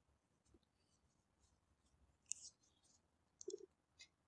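Near silence, with a few faint clicks and short rustles, the clearest about two seconds in and again near the end.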